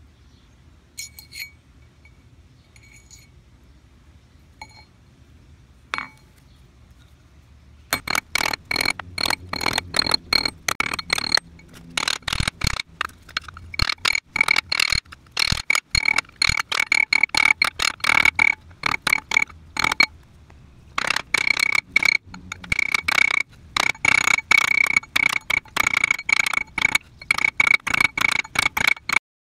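A hammer taps fast and repeatedly on a steel ring mandrel holding a quarter coin ring, shaping the ring on the mandrel. Each strike gives a metallic clink that rings at the same pitch. There are a few light clinks first, then steady tapping from about eight seconds in, with a short pause about two-thirds of the way through.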